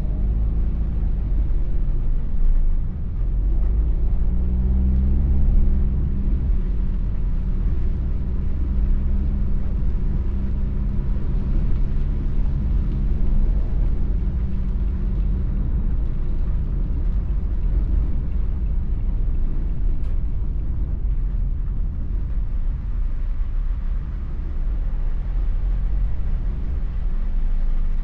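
Car interior while driving on wet roads: low engine hum and tyre rumble over a steady hiss from rain and wet tarmac. The engine note is plain through the first half, then sinks into the road noise.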